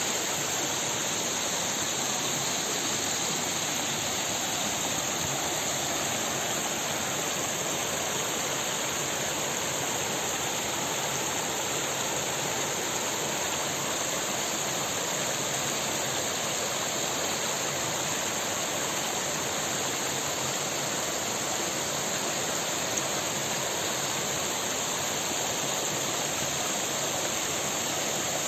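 Shallow mountain stream running over rocks, a steady rushing of water.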